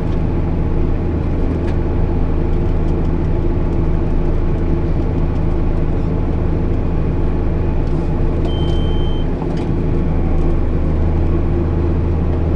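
JCB Fastrac 8250 tractor's diesel engine running with a steady drone, heard from inside the cab. A short high beep sounds once about eight and a half seconds in.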